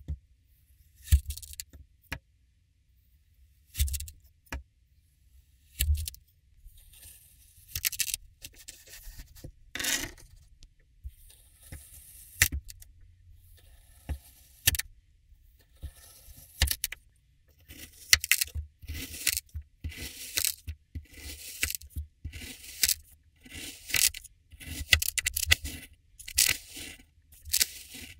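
Kinetic sand being cut and pressed with a metal cutter, the slices crumbling and falling: a series of separate crisp crunches and crumbles, spaced out at first and coming quickly one after another in the second half.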